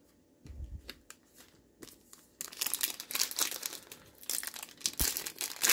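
Foil trading card pack wrapper crinkling and rustling as it is torn open and handled, starting about two and a half seconds in after a few light taps.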